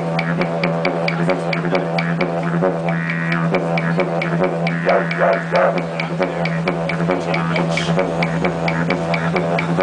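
Wooden didgeridoo played solo: one unbroken low drone with a steady pulsing rhythm of several accents a second, its tone brightening and shifting in the middle.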